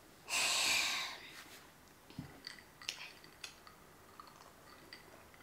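A breathy exhale lasting under a second, like a sigh. It is followed by a soft knock and a series of small clicks and ticks as a drinking glass is picked up and sipped from.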